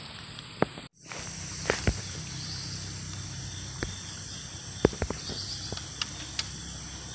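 Steady high-pitched chorus of insects chirring in the vegetation, with a few faint, sharp clicks scattered through it.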